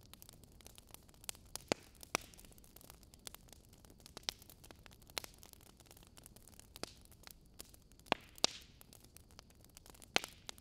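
Faint steady hiss with irregular sharp clicks and crackles scattered throughout, like static.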